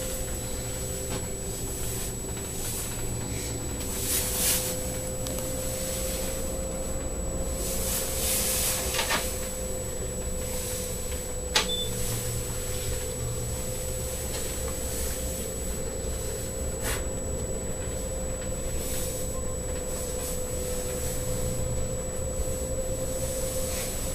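Steady hum inside a moving gondola cabin travelling along its cable: a constant mid-pitched tone over a low rumble, with a few brief hissy rustles and one sharp click about halfway.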